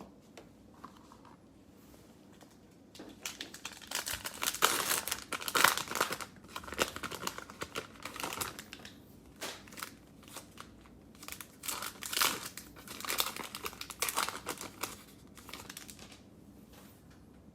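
Plastic cello pack of basketball trading cards being torn open and crinkled, in two spells of crackling a few seconds each after a quiet start.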